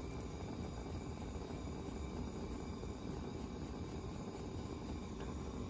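Gas torch burning with a steady rushing flame.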